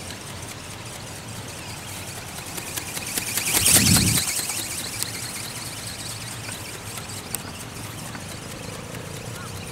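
Small brushless motor and gear train of an electric flapping-wing ornithopter buzzing steadily, with wind noise on the microphone. A loud swell of noise comes about four seconds in.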